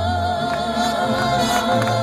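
Live mariachi band playing a ranchera: a woman's held, wavering sung note fades out in the first half second, while stepping bass notes and rhythmic strumming carry on.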